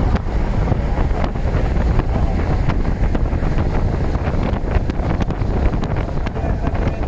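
Freight train rolling past: a steady low rumble with many irregular clacks, and wind buffeting the microphone.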